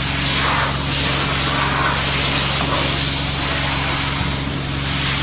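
A machine running steadily: a constant low hum under a rushing hiss that swells and fades.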